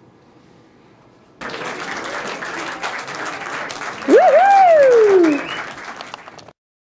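Hands clapping in applause, starting suddenly about one and a half seconds in. A loud whooping cheer rises and then slides down in pitch over the middle, and everything cuts off abruptly near the end.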